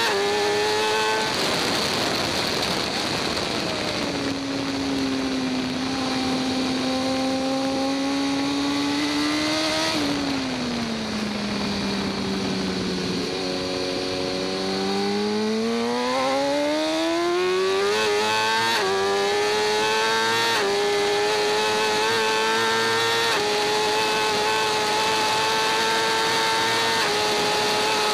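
BMW S1000RR inline-four engine heard from the bike on track. Its pitch drops as the throttle is closed, holds, then falls further about ten seconds in as the bike slows for a corner. It then climbs steadily as the bike accelerates out, steps up through gear changes, and settles at high, steady revs over a constant rush of wind.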